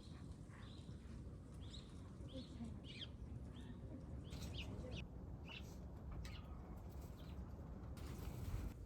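Small birds chirping in short scattered calls over a steady low background rumble, with a brief rustling hiss near the end.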